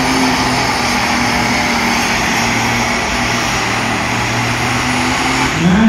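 Dual-fuel alcohol pulling tractor's engine running steadily, an even drone with a constant low hum and no revving.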